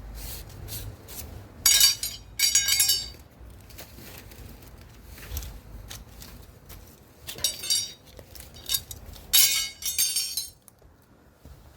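Scrap pieces of aluminium air-conditioner refrigerant pipe clinking and clattering against each other as they are handled and dropped onto a pile, in several sudden bursts with a brief metallic ring.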